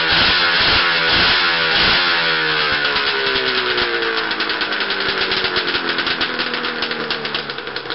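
Vintage snowmobile's two-stroke engine revved by hand, its pitch falling over the first few seconds as it winds down, then settling into a fast, choppy popping idle.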